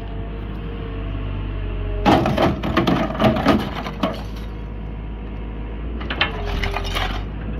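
Excavator-mounted hydraulic demolition shear crushing small electric motors: loud crunching and cracking of metal casings in two bursts, about two seconds in and again about six seconds in. Under it the excavator's engine drones steadily with a thin steady whine.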